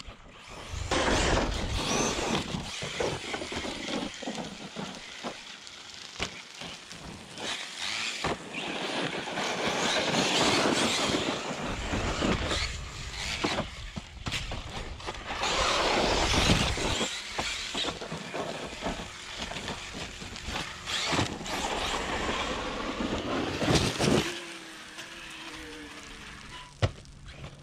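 Large Arrma RC car running hard over gravel: loud tyre and gravel noise that swells and falls as it drives, with knocks and a sharp impact about three-quarters of the way through.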